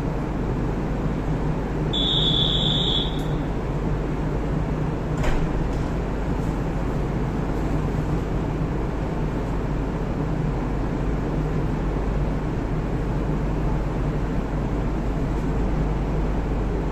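A 701 series electric train stands at the platform, its onboard equipment humming steadily. About two seconds in, a single high electronic beep sounds for about a second, and a short click follows a few seconds later.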